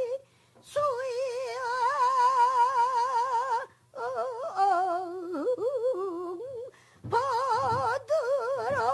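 A female pansori singer holding long sung notes with a wide, even vibrato, in phrases broken by short breaths, with pitch sliding down through a phrase in the middle. Low, short thumps come in under the voice from about seven seconds in, strokes of the accompanying buk drum.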